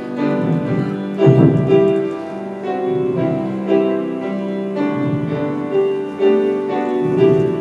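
Piano playing a slow gospel hymn tune in sustained chords, with fresh chords struck every second or so.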